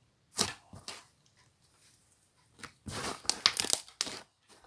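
Homemade PVA-glue slime being stretched and squished by hand, giving sticky crackling and tearing sounds: a couple of short ones in the first second, then a dense run in the second half.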